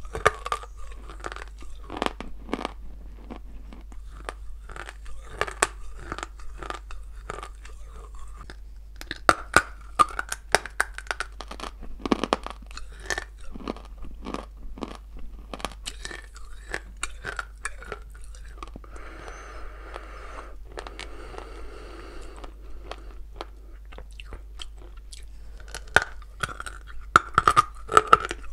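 Close-up crunching and chewing of dry blue Ural clay: crisp, sharp crunches at each bite and chew. A few seconds of softer hissing noise come past the middle, and a run of louder bites comes near the end.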